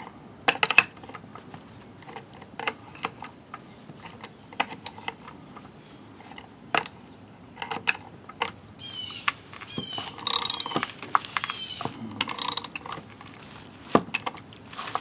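An adjustable wrench turning the nut of a pulley-installer tool, pressing the pulley onto a GM 3800 power steering pump shaft. Scattered metal clicks and clinks of wrench on nut, with brief squeaks about nine seconds in and denser clinking for a few seconds after.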